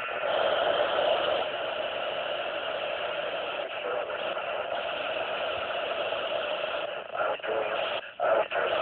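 Amateur radio transceiver's speaker putting out a steady rush of static, broken by a few short dropouts near the end.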